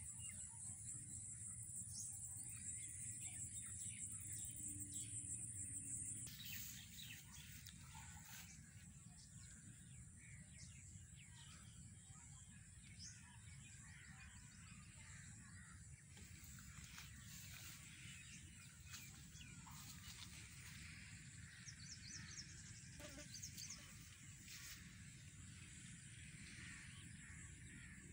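Faint rural field ambience: a steady low rumble under a steady high insect-like drone, with scattered faint bird chirps that grow more frequent near the end. The background changes abruptly about six seconds in.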